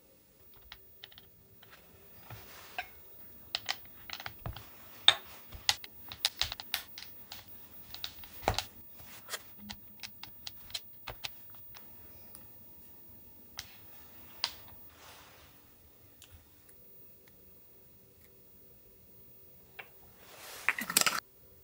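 Metal ice-cream scoop scraping through firm vanilla ice cream and knocking against the tub: a long run of sharp clicks and scrapes that thins out after about fourteen seconds. A brief rustle near the end.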